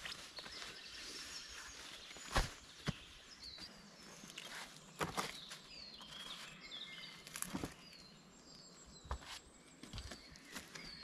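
Forest ambience: birds giving short falling chirps now and then, with scattered sharp clicks and taps at irregular moments, the loudest about two seconds in.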